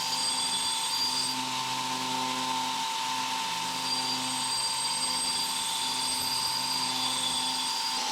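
Electric grinder running steadily with a constant whine, with no change in speed.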